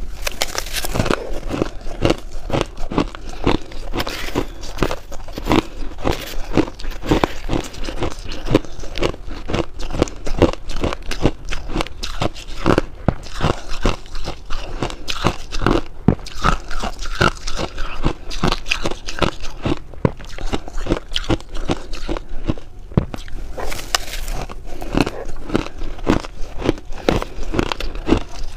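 Shaved ice being bitten and chewed, mouthful after mouthful: rapid, closely spaced crisp crunches.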